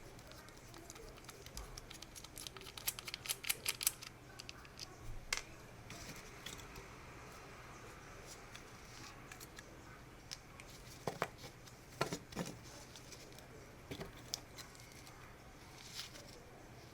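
Light clicks and scratching from hand work at a workbench, with a quick run of clicks about three seconds in and a few sharper clicks around eleven and twelve seconds.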